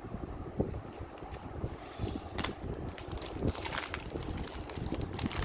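Thin plastic protective film being peeled off a new iPad Air, with crinkling and rustling that picks up about two and a half seconds in and again near three and a half seconds, over a steady low background hum.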